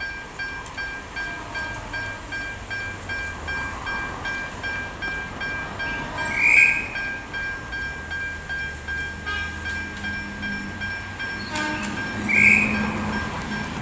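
Level-crossing warning bell ringing steadily at about two strokes a second as an Alco RSD35 diesel locomotive approaches. The locomotive's engine rumble grows louder over the last few seconds. Two short, loud high-pitched sounds stand out about six seconds apart.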